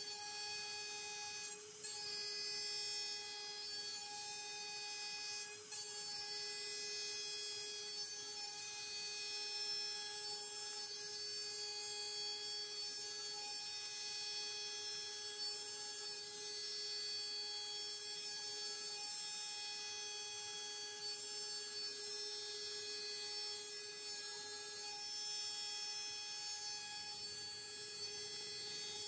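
AMB/Kress FME1050 router spindle on a home-built CNC mill running at high speed with a steady whine, dipping briefly about two and six seconds in.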